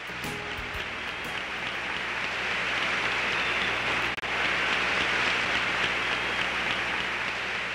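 Crowd applauding steadily, swelling a little toward the middle and easing near the end, with a brief break about four seconds in.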